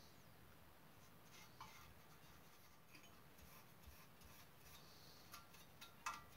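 Near silence with faint scratchy brushing and a few light ticks, the loudest near the end: a small paintbrush dabbing baking-soda solution onto soldered brass joints to neutralise the soldering flux.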